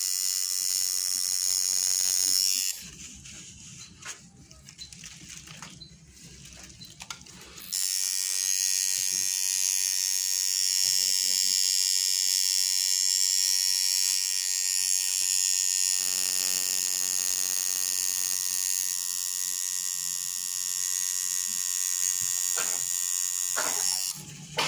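Tattoo machine buzzing steadily as its needle works ink into skin. It stops for about five seconds from around three seconds in, then runs again until just before the end.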